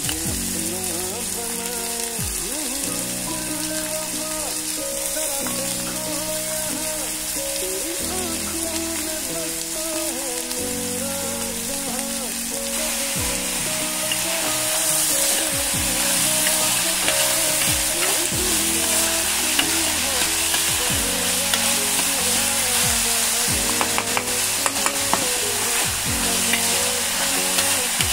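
Chopped red onions sizzling in hot coconut oil in a steel pan, stirred with a metal spoon. The sizzle grows louder about halfway through, and the spoon clicks against the pan a few times near the end.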